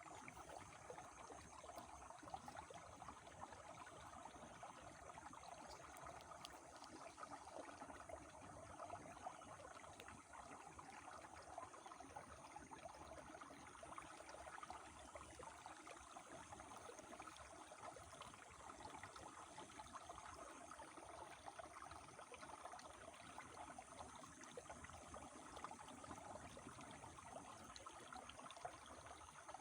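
A small river flowing, a faint, steady rush of water.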